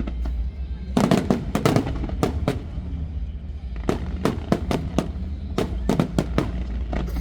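Fireworks going off in rapid strings of sharp bangs: one run about a second in, then another quick series from about four seconds in.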